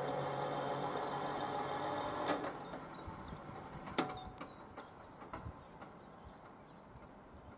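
Electric drive of a level-crossing barrier humming steadily as the boom rises, stopping with a click a little over two seconds in. A sharp click follows at about four seconds, then a few lighter ticks, after which the crossing falls quiet.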